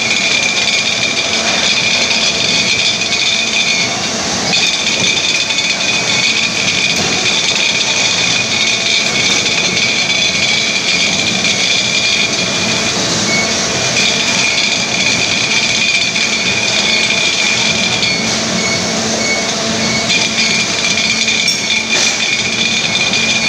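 Bottling-line conveyor and plant machinery running steadily and loudly, with a steady high-pitched whine over the mechanical noise.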